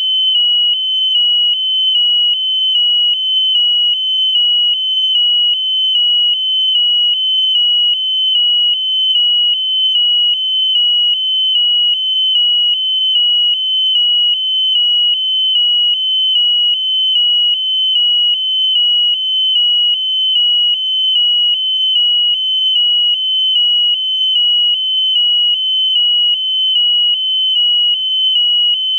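Electronic piezo buzzer on a balloon payload sounding one continuous high-pitched tone with a fast, even pulse.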